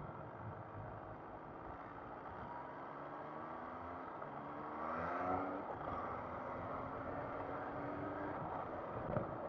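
MV Agusta Brutale Rosso 800's three-cylinder engine accelerating on the road, its pitch climbing and dropping back as it shifts up through the gears, over wind and road noise.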